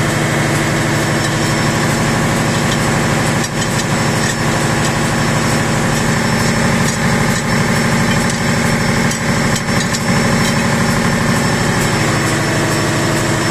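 Loud, steady engine-room machinery noise: a running engine at constant speed with a deep hum and a fast, even pulse.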